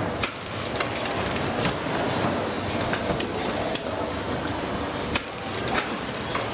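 Automated carton-making machine running: a steady mechanical clatter with frequent sharp clicks and knocks at irregular intervals.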